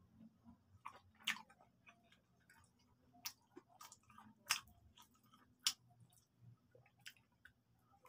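A person chewing fried chicken close to the microphone: wet chewing with several sharp crunches and mouth clicks at irregular intervals, the loudest roughly a second apart.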